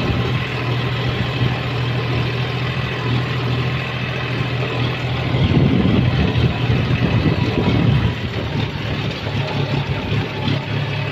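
John Deere tractor's diesel engine running steadily under way, heard from the driver's seat, easing slightly about eight seconds in.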